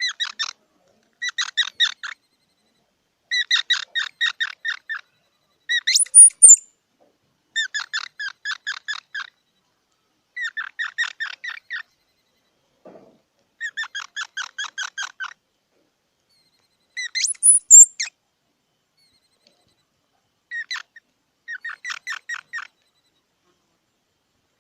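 Squirrel calling in repeated bouts of rapid chattering chirps, each bout lasting about a second at several chirps a second, with short silences between. Twice a louder, high squeal sweeps upward, and these are the loudest calls.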